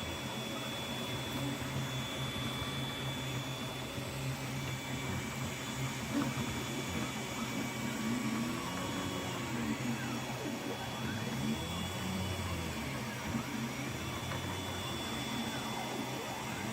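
Anet A8 3D printer running a print: its stepper motors whine in repeated rising and falling sweeps over a steady hum.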